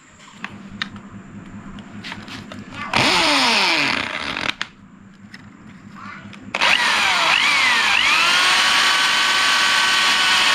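Corded electric drill boring a hole through a thin metal strip held on a wooden block for a mudguard mounting clamp. After a few light handling clicks, the drill runs in a short burst about three seconds in and winds down, then from about six and a half seconds spins up and keeps running steadily through the metal.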